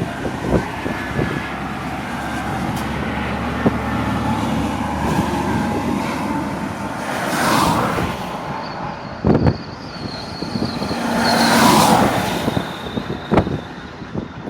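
Truck running on the road, heard from inside the cab: a steady low engine hum with road noise, two rushing swells that rise and fall about halfway through and near the end, and a few sharp knocks.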